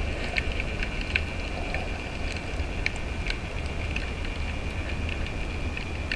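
Underwater sound picked up by a camera in a waterproof housing: a steady low rumble and hiss, with a thin high steady whine and scattered sharp clicks and ticks.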